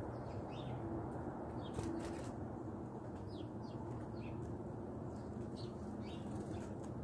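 Small birds giving short, high, falling chirps, one or two at a time and scattered throughout, over a steady low background rumble.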